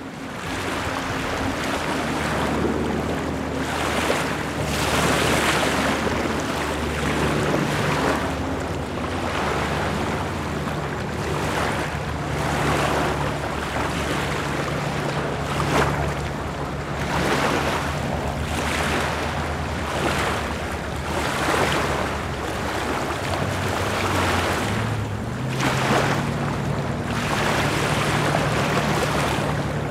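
Gusty wind across the microphone over choppy lake water, swelling about once a second, with the low steady hum of boat motors running slowly on the water. The motor hum steps up in pitch about 25 seconds in.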